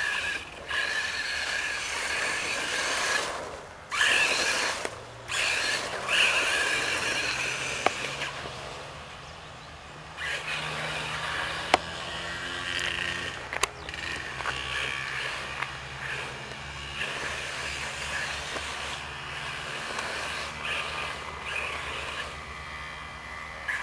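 Radio-controlled buggy driving at speed, its motor whining high and revving up and down, dropping out sharply a couple of times as the throttle is let off. Two sharp clicks stand out about halfway through.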